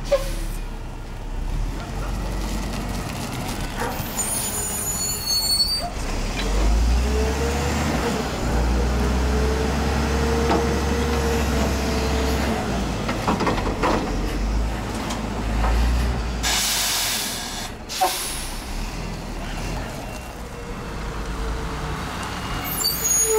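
Mack LE front-loader garbage truck at work: the diesel engine revs up while the hydraulic forks lift the front bin overhead to dump it, with a rising and falling hydraulic whine. About two-thirds of the way through comes a sharp air-brake hiss, followed by clanks and squeaks as the truck moves off.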